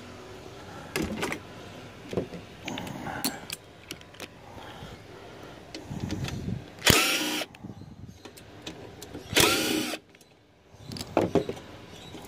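Power drill-driver backing the mounting screws out of a refrigerator condenser fan motor's bracket, in two short runs about two and a half seconds apart, the motor's pitch rising and falling each time. Clicks and clinks of the metal bracket and parts being handled in between.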